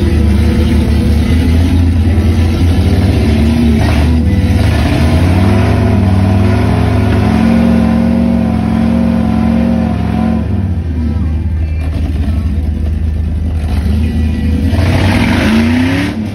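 A rock-crawling Wrangler's 4.8L LS V8 is working under load as the rig climbs a rock ledge, revving up and down in bursts. The engine eases off about two-thirds of the way through, then revs up again near the end.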